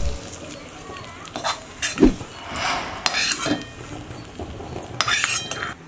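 A metal spoon scraping and knocking against a steel bowl while stirring and scooping ghee-fried cashews, almonds and raisins, in short, irregular strokes with a few longer scrapes.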